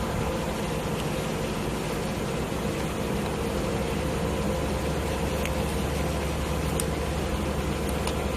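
Steady machine hum and hiss, with a few faint clicks in the second half.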